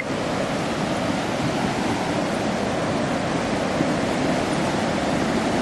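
Flooded river rushing steadily down a road, an even wash of moving water. A brief rising whistle sounds right at the start.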